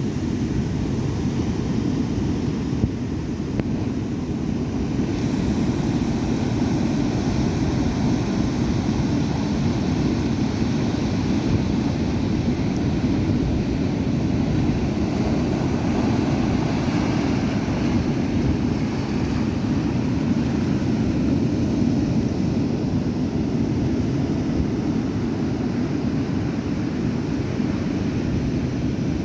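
Stormy sea surf: waves breaking continuously, a steady deep wash of noise with no pauses.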